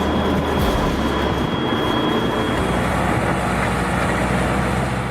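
A heavy diesel machine's engine running steadily under load, with a thin high whine that stops about three seconds in.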